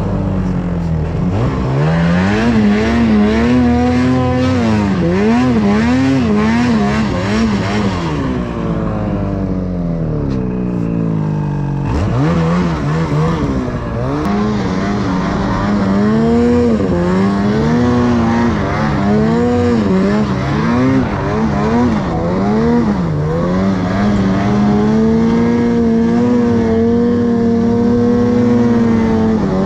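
Ski-Doo Freeride's 850 E-TEC two-stroke twin revving up and down over and over as the snowmobile is blipped and wheelied through deep powder. The revs drop back for a few seconds about a third of the way in, then climb and are held high and steady near the end on a climb.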